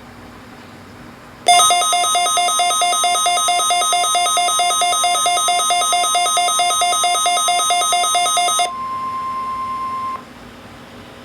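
Midland WR-120EZ weather radio sounding its alert: a loud, rapidly pulsing electronic beep alarm for about seven seconds, triggered by the weekly test. The alarm cuts off and a steady, quieter single tone from the broadcast, the NOAA Weather Radio 1050 Hz warning-alarm tone, carries on for about a second and a half. It then stops, leaving faint radio hiss.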